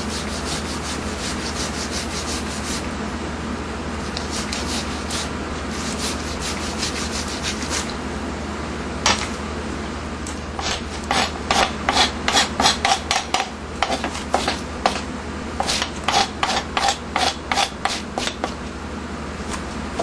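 Kitchen knife scraping along pufferfish skin to shave off its spiny 'shark-skin' layer: a run of rasping strokes, light and quick at first, then louder strokes about two or three a second from about halfway in.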